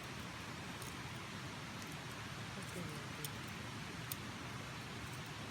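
A fire burning in a rocket stove built from scrap wooden rafters: a steady hiss with a few sharp crackles, the two loudest about three and four seconds in.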